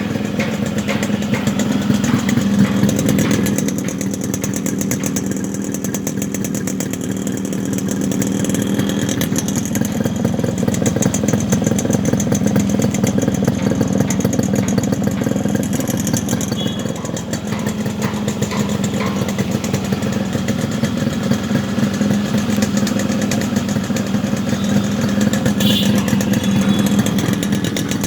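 Yamaha RX 100's single-cylinder two-stroke engine running steadily through its stock exhaust silencer.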